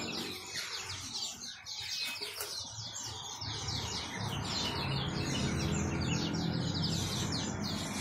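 Many caged songbirds chirping and twittering together in a dense, unbroken chorus. A low steady hum comes in underneath from about halfway.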